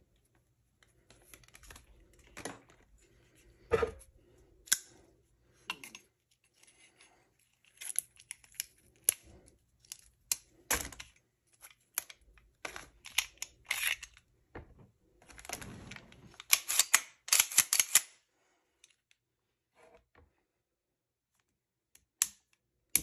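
Hands handling a 1911 pistol and pulling a string-tied tag and a clear plastic piece off it: scattered clicks, ticks and rustles. There is a quick run of sharp clicks about two-thirds of the way through and one sharp click near the end.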